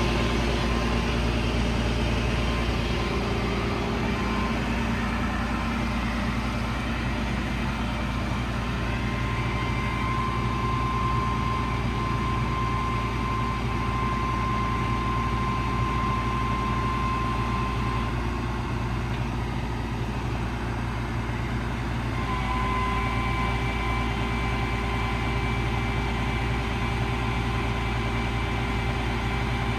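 Cummins 5.9 diesel engine running steadily as the service crane's hydraulics are worked. A high whine over the engine fades out about 18 seconds in and returns a few seconds later.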